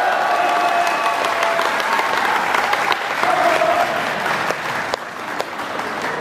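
Audience applauding in a large hall, the clapping thinning out about five seconds in.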